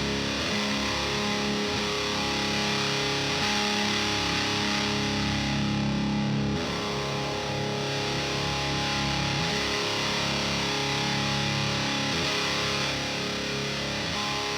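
Distorted electric guitar through a Diezel VH4 preamp pedal driving an Orange Pedal Baby power amp: a Chapman ML1 Modern with DiMarzio D-Activator pickups, tuned half a step down in drop D, plays a heavy high-gain part with sustained chords that change every few seconds.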